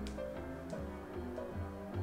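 Background music: a light tune of held notes over a changing bass line.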